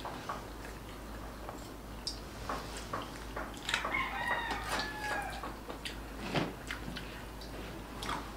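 A rooster crows once, about four seconds in, lasting a second and a half, over light clicks and taps from eating at the table.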